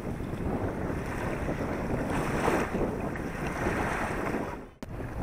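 Strong wind buffeting the microphone, with waves washing on the shore. It swells and eases in gusts and cuts out briefly near the end.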